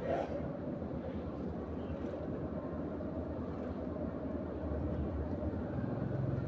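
Steady low background rumble, with a brief higher sound just after the start.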